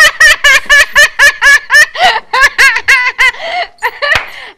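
People laughing hard together: a rapid, high-pitched run of ha-ha laughs, about five a second, that thins out and tails off near the end.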